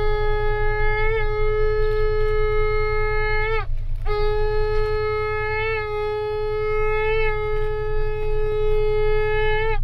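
Ram's-horn shofar blown in two long, steady blasts. The first ends with an upward break about three and a half seconds in. After a short gap the second blast holds, its pitch wavering briefly a couple of times, and ends with a quick upward flick.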